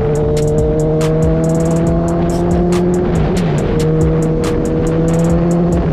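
Kawasaki Z1000R's inline-four engine running at steady cruising speed, its pitch creeping up, dipping briefly about three seconds in as the throttle eases, then holding again. Background music with a quick ticking beat plays over it.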